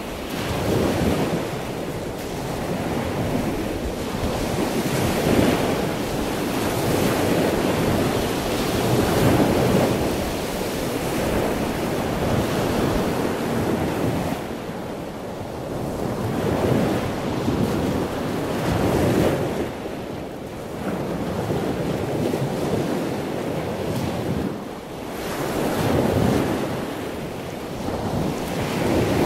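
Sea waves breaking and washing up the shore, the surf swelling and falling back every few seconds.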